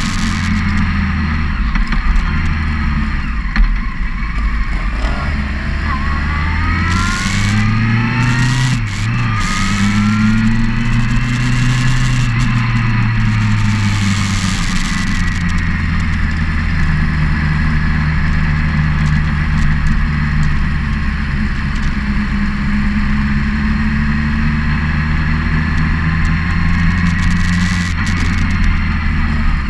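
Motorcycle engine heard from the moving bike itself, climbing in pitch as it accelerates through a gear change about six to nine seconds in, then running steadily at cruising speed. Wind gusts across the microphone several times in the first half.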